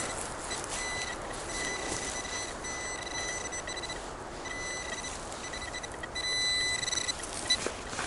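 Metal detector signalling with a steady high-pitched tone that sounds in stretches of varying length, loudest near the end, over a constant rush of wind and road noise.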